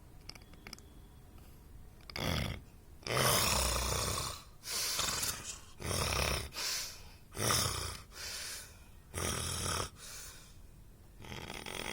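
A sleeping person snoring: a run of about eight rough, loud snores at uneven spacing, each lasting about half a second to a second, with quieter breathing between them.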